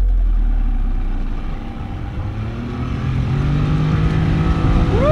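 Motorboat engine running, with a low rumble whose pitch rises slowly over the second half as it speeds up.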